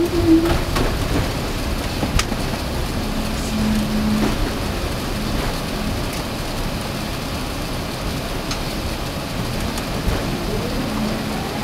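Steady rushing cabin noise inside an Airbus A380 rolling out on the runway after landing, with a few light clicks. A faint tone rises and then holds near the end.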